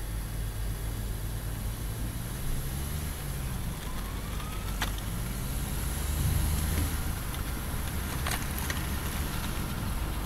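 Heavy trucks and coaches driving on a road: a steady low rumble of engines and tyres that swells briefly about six seconds in. Two short clicks come near five and eight seconds.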